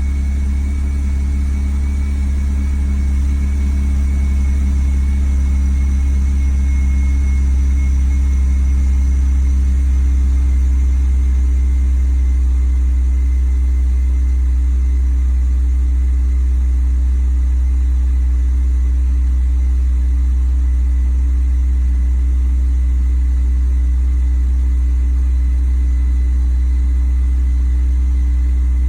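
BMW E46 330Ci's 3.0-litre inline-six idling steadily at a high idle, with its MAF sensor unplugged, on a car that has a rough idle and little power.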